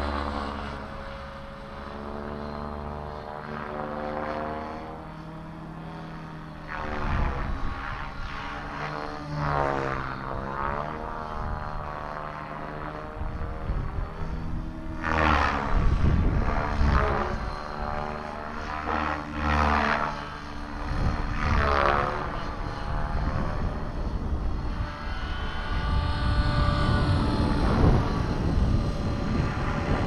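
Align T-Rex 600 electric RC helicopter in flight: the rotor and brushless motor whine rises and falls in pitch over and over as it manoeuvres and passes, with wind rumbling on the microphone.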